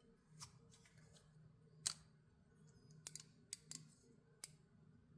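Axis-lock folding pocketknife being worked open and shut: about six sharp metallic clicks at uneven intervals, the loudest about two seconds in, with three close together around the three- to four-second mark.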